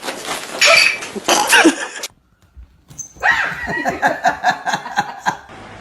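A dog barking and yipping, in two spells broken by a brief silence about two seconds in. The second spell is a quick run of short yaps, several a second.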